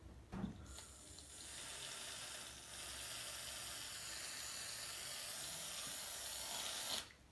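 Aerosol can of shaving foam spraying in one long steady hiss, starting about a second in and cutting off suddenly near the end.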